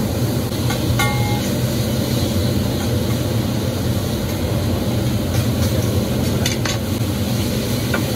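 Steady low rumble of restaurant room noise with a few sharp clinks of cutlery. One clink about a second in rings briefly.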